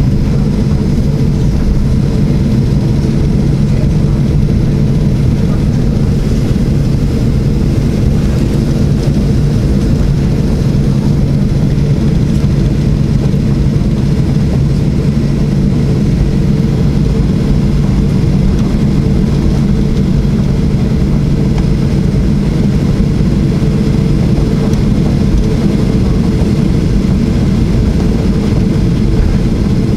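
Steady cabin noise inside a Boeing 737-800 taxiing on the ground, its CFM56-7B engines at idle: a constant low hum with several steady droning tones and a hiss over it.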